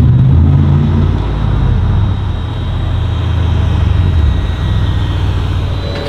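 Mercedes-Benz F200's 6-litre V12 running at low revs as the car moves slowly. Its low rumble drops away about four seconds in.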